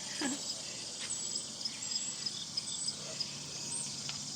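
Steady, high-pitched chorus of chirping insects.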